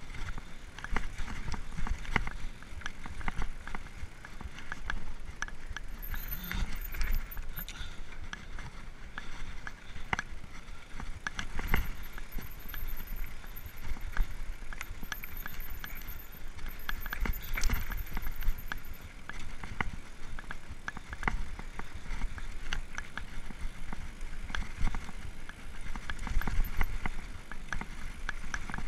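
Mountain bike descending a rough dirt downhill trail: the frame and components rattle and clatter in quick, irregular knocks over the bumps, over a steady low rumble.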